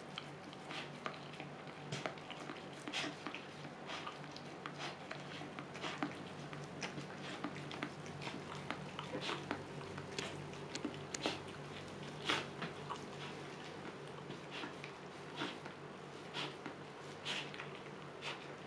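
Husky mother licking and chewing at a newborn puppy and its birth membranes: irregular wet licks and smacks, several a second, over a steady low hum.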